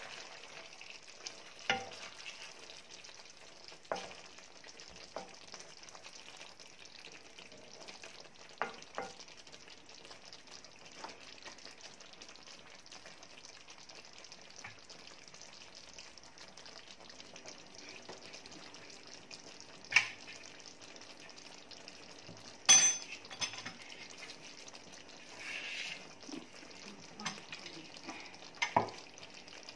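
Chicken in coconut milk sizzling in a pan as the sauce reduces and its oil separates out, with a wooden spatula stirring and scraping through it. A few short sharp knocks of the spatula against the pan, the loudest about two thirds of the way through.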